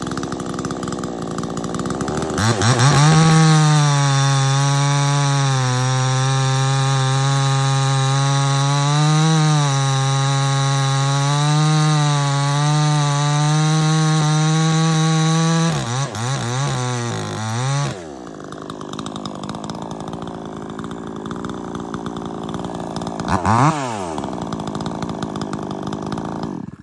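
Proyama 68cc two-stroke gas chainsaw idling, then opened to full throttle about two seconds in and held wide open through a cut in hardwood for about thirteen seconds, its pitch wavering under load. It is then revved up and down a couple of times and drops back to idle, with one short rev blip near the end.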